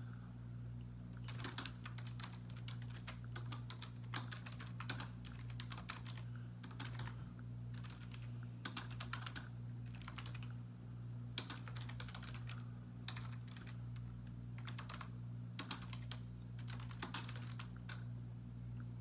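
Typing on a computer keyboard in irregular bursts of quick key clicks with short pauses between, over a steady low hum.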